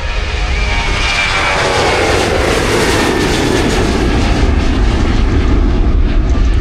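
Boeing C-40 Clipper's twin CFM56-7 turbofan engines going past, a loud rushing jet noise with a whine that falls steadily in pitch as the aircraft passes.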